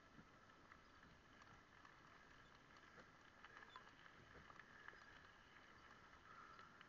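Near silence: a faint steady hiss with a few scattered faint clicks.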